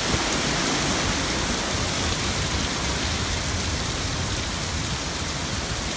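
Hurricane wind and rain: a steady, even rushing noise with nothing standing out of it.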